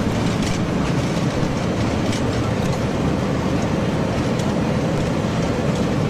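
Steady heavy rumble and rattle inside a Boeing 737-800 cockpit during the landing rollout: wheels running on the runway and engine noise as the jet decelerates, with a few faint clicks.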